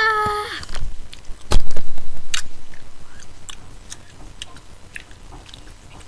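A brief high-pitched vocal squeal from a girl, then a loud knock about a second and a half in, followed by scattered clicks and rustling of handling close to the microphone.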